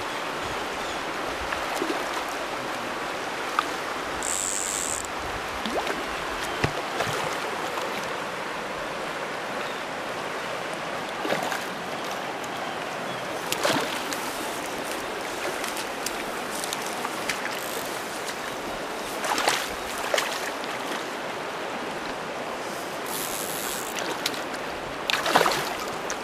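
Steady rush of a wadeable river's current, with a few brief sharp noises scattered through, the loudest near the end.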